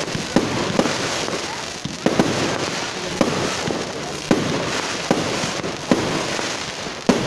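Fireworks display: shells bursting with sharp bangs about once a second over a steady hiss from the rising sparks.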